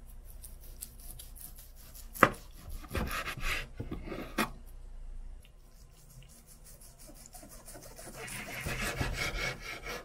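A knife sawing back and forth through boiled pork shoulder on a wooden cutting board, in a run of fine scraping strokes. A sharp knock comes about two seconds in.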